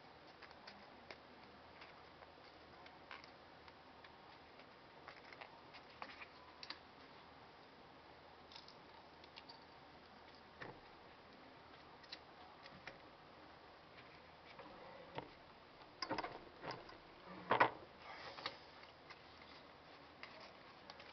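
Bench hand press setting metal snaps into canvas. Scattered small clicks come from snap parts and fabric being handled, then a cluster of louder, sharp metal clicks comes about sixteen to eighteen seconds in as the press comes down on a snap.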